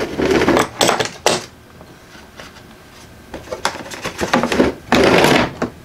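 Metal brake tools, a disc brake pad spreader and brake spring pliers, clattering and knocking against a hard plastic tool case as they are lifted out and handled. There is a burst of clatter at the start, a few knocks in the quieter middle, and a longer clatter near the end.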